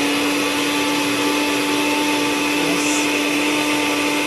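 Electric kitchen blender running steadily, grinding a spice paste of chili, shallot, garlic and ginger; a constant motor hum with a high whine over it.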